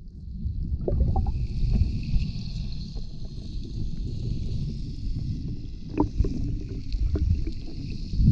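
Shallow surf heard through an underwater camera: a muffled, churning low rumble of moving water with a steady high hiss, and a few sharp clicks of shingle pebbles knocking together.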